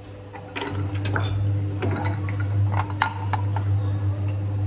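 Glassware clinking: ice cubes knocking in a glass tumbler and a spoon tapping against glass, many short sharp clinks, over a steady low hum.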